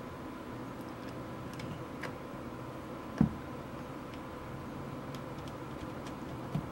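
Small precision screwdriver turning screws into a Canon Rebel T3 camera body: faint scattered ticks and clicks, with one louder knock about three seconds in, over a faint steady hum.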